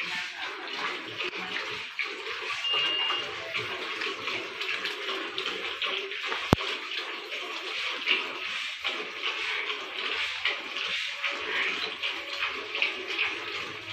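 Milk squirting from a water buffalo's teats into a pail under hand milking: a quick, continuous run of splashing jets. A single sharp click about six and a half seconds in.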